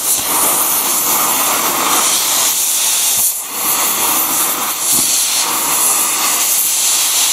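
Gas cutting torch hissing steadily as its jet blows through a red-hot steel flywheel ring gear, cutting it apart in a shower of sparks. The hiss dips briefly about three and a half seconds in.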